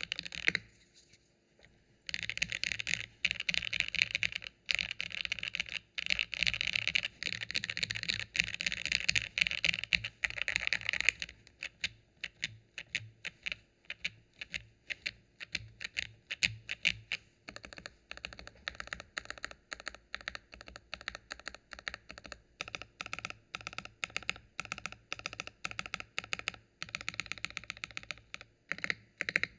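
Typing on a KBDfans Phase One 65 mechanical keyboard with Gateron Oil King linear switches, GMK keycaps and an aluminium plate, built without case foam. After a brief pause about a second in, the typing is fast and dense until about eleven seconds in, then the keystrokes come lighter and more spaced out.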